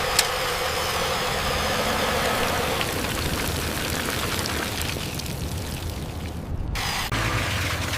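A motor running steadily with a low, pulsing rumble, a sharp click just after the start and an abrupt change in the sound about seven seconds in.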